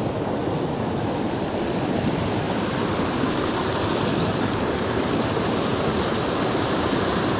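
A small creek's flowing water, a steady, even rush with no break.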